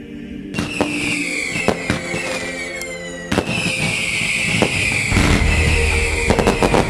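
Fireworks going off: sharp bangs and crackling, with a cluster of quick bangs near the end and long high whistles that fall in pitch, over music with a heavy bass that comes in about five seconds in.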